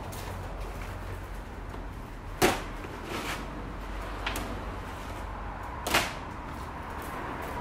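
Gear being set down in a pickup truck's bed: two sharp knocks about three and a half seconds apart, with a few lighter knocks between.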